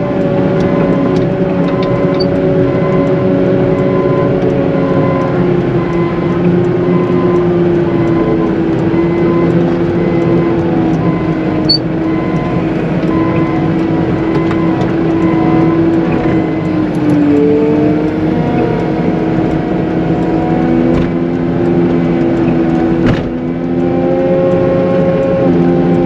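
Compact wheel loader's diesel engine running under load as it pushes slush, its speed rising and falling several times.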